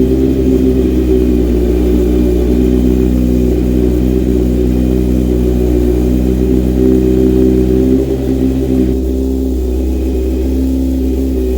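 Kawasaki Z900's inline-four engine idling steadily through a full aftermarket exhaust of Black Widow headers and a MIVV silencer. The tone shifts slightly about eight seconds in.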